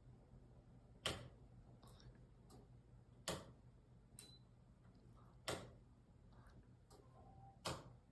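A ceiling fan running with a sharp, regular click about every two seconds, four in all, plus a few fainter clicks between them, over a steady low hum.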